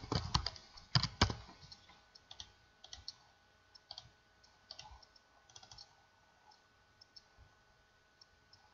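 Computer keyboard and mouse clicks: a quick run of key presses in the first second or so, then scattered fainter clicks.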